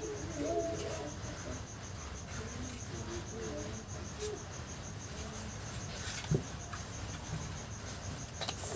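A cricket chirping steadily in a fast, even trill, with a single sharp click about six seconds in.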